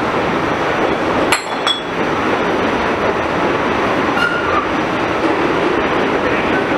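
Interior of an R46 subway car running along the track: a steady rumble and rattle of the moving car. Two sharp metallic clinks come about a second and a half in, and a brief faint squeal around four seconds.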